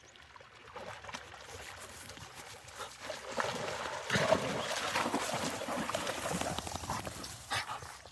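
Labrador retrievers splashing and paddling through a water hole, a dense run of irregular splashes that grows louder about halfway through and dies away near the end.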